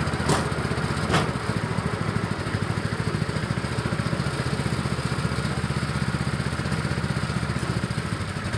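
Small engine of a rail trolley running steadily with an even pulse as it moves slowly along the track. Two sharp knocks come about a third of a second in and just over a second in.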